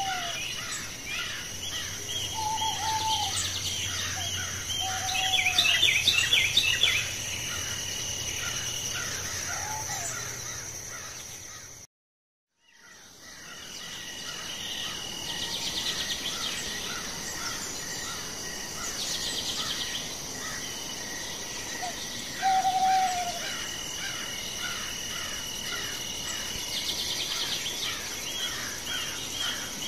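Outdoor nature ambience of birds and insects: many small bird chirps, a few short falling calls every few seconds, and a steady high insect trilling. The chirping is loudest about a third of the way in, and the sound cuts out completely for about a second near the middle before fading back in.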